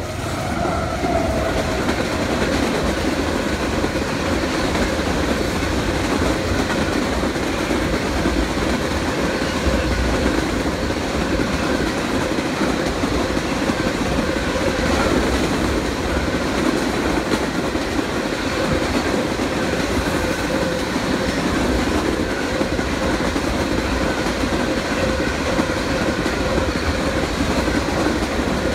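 Long freight train passing close by at speed: a steady, loud rumble of wheels on the rails with the clickety-clack of freight cars rolling over the track.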